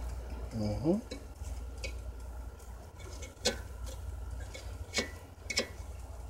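Metal fork clinking against a metal air fryer basket while turning chicken wings: several sharp separate clicks, with a brief rising sound about a second in that is the loudest moment, over a steady low hum.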